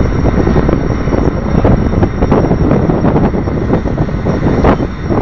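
Diesel locomotive engine running close by: a loud, steady low rumble.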